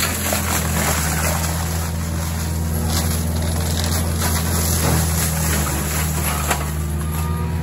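Cat compact track loader's diesel engine running steadily under load while its forestry mulcher head grinds through brush and palmettos, a steady low engine drone under a hiss of shredding, with a few sudden cracks.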